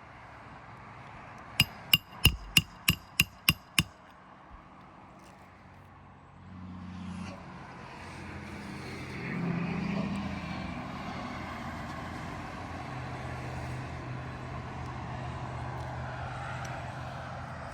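A hammer drives a roofing nail with eight quick ringing strikes, about three a second. A few seconds later a vehicle engine comes up and keeps running steadily.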